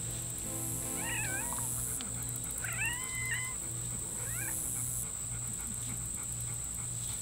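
Domestic cat meowing three times, short bending calls with the middle one the longest.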